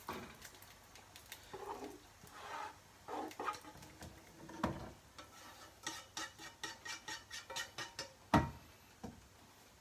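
Utensil scraping and knocking against a frying pan as ground beef is emptied from it into a pot of spaghetti, with a quick run of scrapes about six seconds in and one loud knock near the end.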